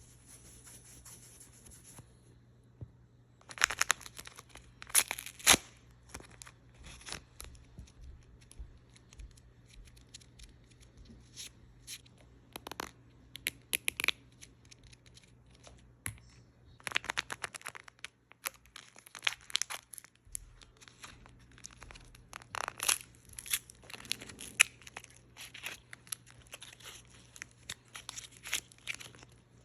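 Barbie doll packaging being opened by hand: cardboard and plastic tearing and crinkling with sharp snaps, in irregular bursts separated by quieter pauses, over a faint steady hum.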